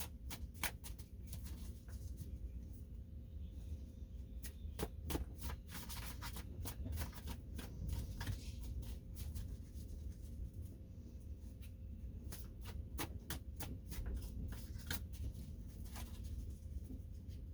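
Tarot cards being handled: scattered light clicks and rustles, over a faint steady hum.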